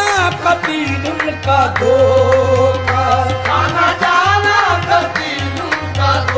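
Qawwali music: tabla playing a busy rhythm under a melodic line that swoops up and down in pitch, over a steady low drone.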